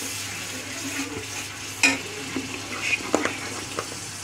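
Spice masala sizzling in oil in a metal karahi as it is fried down (the kasha stage), with a steel spoon stirring and scraping the pan. A few sharp clinks of the spoon against the pan stand out, loudest about two and three seconds in.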